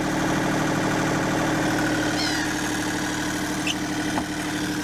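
Sailing yacht's engine running steadily as the boat motors away from its berth. A brief high falling chirp sounds about two seconds in.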